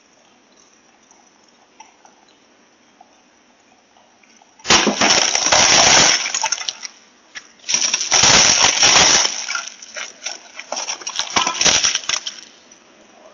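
Property being smashed, picked up by a doorbell camera's microphone: a low hiss, then from about five seconds in three loud bursts of rapid banging and crashing, the last dying away shortly before the end.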